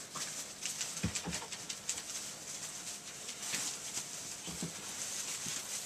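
Retriever puppies scrambling and play-fighting in a pen of wood shavings: continual rustling and scratching of the shavings under their paws, with a few soft low thumps.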